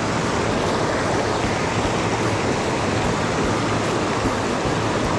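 Mountain stream rushing over rocks and down a small cascade, a steady, even rush of water.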